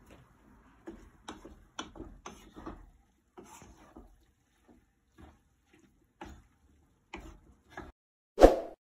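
A cooking utensil scraping and tapping in a frying pan as pancit noodles are stirred and scooped: a run of irregular light clicks and scrapes. Near the end comes a single louder, short sound effect.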